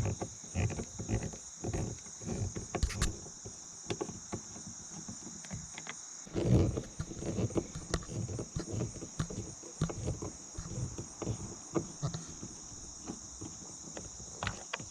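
Crickets trilling steadily in the background, with scattered clicks and knocks of hand tools and plastic trim being worked on a car door.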